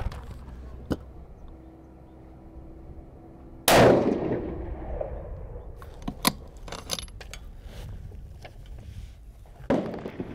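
A single 6mm Creedmoor rifle shot about a third of the way in, fading out over about a second. It is followed a couple of seconds later by several sharp metallic clicks, and a weaker bang near the end.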